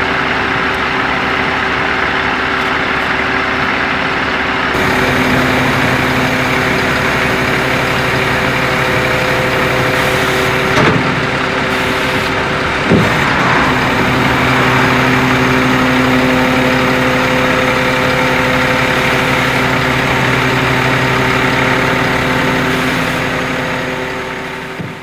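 Flatbed tow truck's engine idling steadily, with two brief knocks about halfway through.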